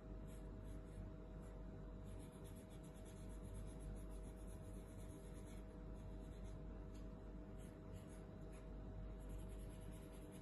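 Yellow felt-tip marker scribbling on a paper plate, faint, in runs of quick short strokes as small squares are filled in, over a steady low background hum.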